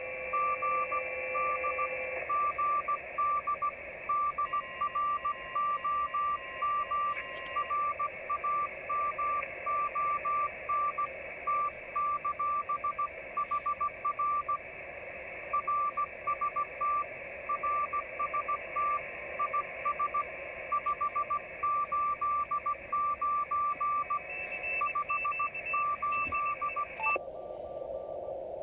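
Slow Morse code (CW) from a Yaesu FT-817D transceiver's speaker: a single steady beep keyed on and off in dots and dashes over band hiss. The code stops shortly before the end and the hiss changes tone.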